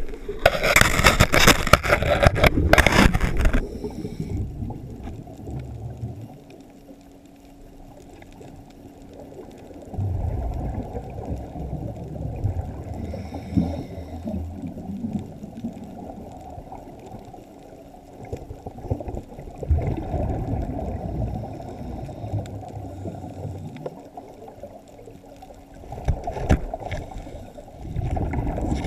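Scuba regulator breathing heard underwater through a camera housing. A loud rush of exhaled bubbles lasts for the first few seconds, then muffled bubbling rumbles come back every several seconds with each breath.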